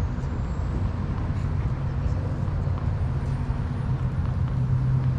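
Steady low hum and rumble of background noise, with no clear events standing out.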